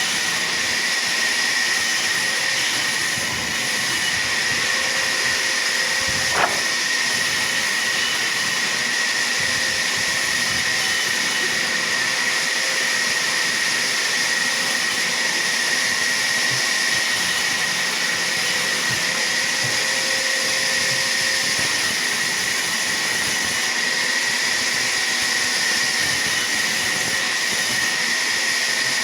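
Sawmill saw running steadily, a continuous mechanical hiss with a high steady whine, and one sharp knock about six seconds in.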